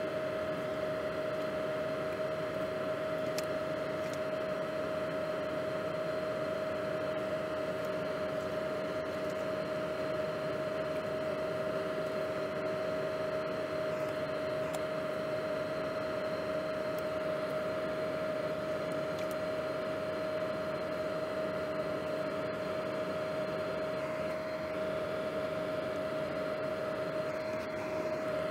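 Steady hiss and hum of a running electric fan with one constant whining tone, unchanging throughout.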